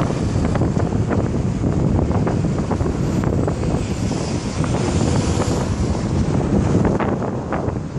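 Wind buffeting the microphone: a steady low rumble with frequent crackles. Traffic noise from the highway runs underneath it.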